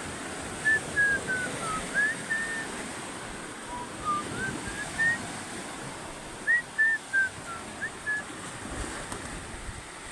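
Phrases of short, clear whistled notes, some sliding up or down in pitch, over a steady wash of waves and wind.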